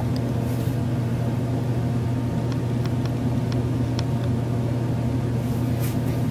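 A steady low mechanical hum, unchanging throughout, with a few faint light ticks in the middle.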